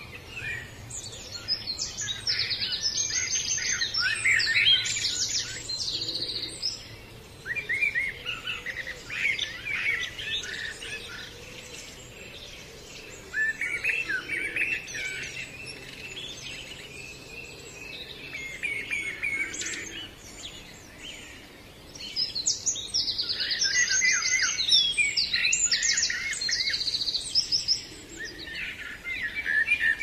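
Small songbirds singing and chirping in repeated bouts of quick, high phrases with quieter gaps between them; the same run of song comes back about twenty seconds later.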